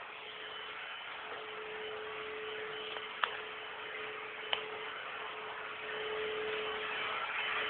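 Faint room tone with a steady hum. Two sharp clicks come about a second and a quarter apart, a little before the middle.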